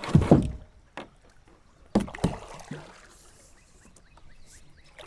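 Kayak paddle being handled, with a few sharp knocks of the paddle against the plastic kayak hull about a second apart and water splashing and dripping between them.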